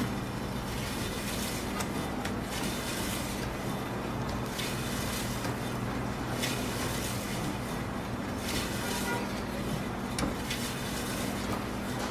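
Electric deli slicer running with a steady motor hum, its spinning circular blade shaving thin slices off a leg of cured ham. A hiss rises with each pass of the carriage, every second or two.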